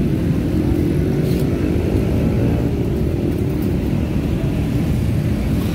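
Steady low rumble of road traffic, with vehicle engines running.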